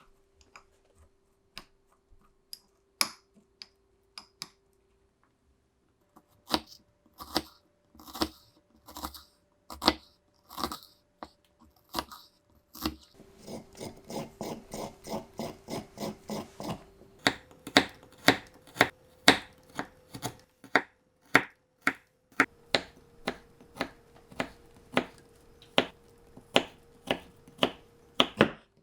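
Miniature kitchen knife striking a small cutting board: scattered taps at first, then steady chopping at a few strokes a second from about halfway.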